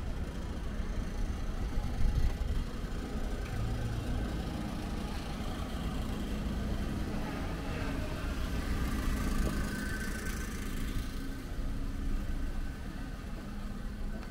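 Street traffic: a car engine running close by, steady and low. A vehicle passes, loudest about two-thirds of the way through.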